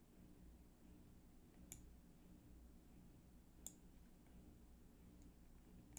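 Near silence: faint room hum with a few faint computer mouse clicks, two clearer ones about two seconds apart and a fainter third near the end.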